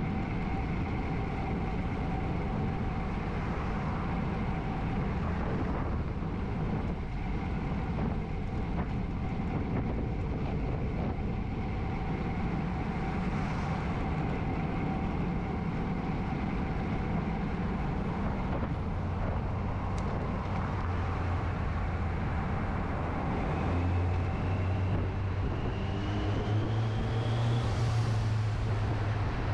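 Steady wind rush and tyre-on-road noise of a road bike being ridden, heard on an action camera's microphone. In the last few seconds a motor vehicle's low engine hum and a rising whine grow louder, peaking near the end.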